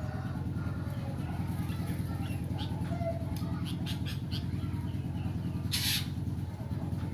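Caged sooty-headed bulbul (kutilang) calling with short chirps, clicks and a brief whistle, including magpie-robin calls it has learned to mimic, with a loud harsh rasping burst about six seconds in. A steady low hum runs underneath.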